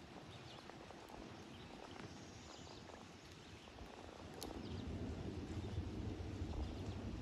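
Faint outdoor ambience, with a few thin high chirps and ticks. A low rumble grows louder about halfway through.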